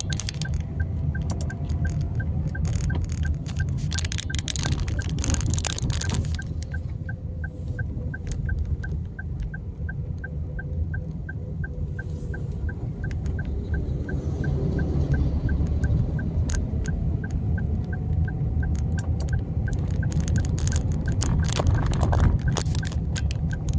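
Road traffic passing a roadworks: a steady low rumble of vehicles with scattered clicks and faint shifting engine tones, and a regular high tick about twice a second through most of it.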